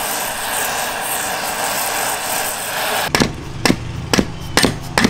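A steady rushing hiss cuts off suddenly about three seconds in. It is followed by five sharp hammer blows on metal, about half a second apart, as a seized exhaust stud is worked on.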